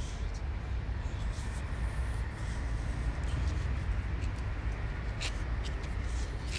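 Steady low rumble of outdoor city ambience, with a few faint rustles and ticks, the clearest about five seconds in.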